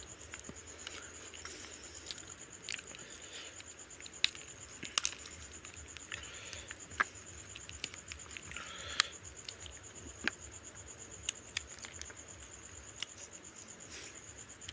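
Close-up sounds of a person eating fish head curry and rice by hand: soft wet chewing and smacking with scattered sharp clicks. A faint steady high-pitched whine runs underneath.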